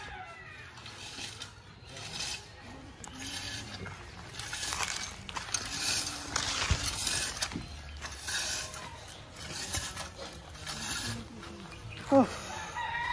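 Hand-pushed tine cultivator scraping through loose, freshly tilled soil in repeated strokes, about one a second: a tilling pass over the garden bed. A short, loud call comes near the end.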